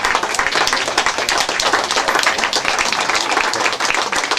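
Many hands clapping: applause, as a dense, steady patter.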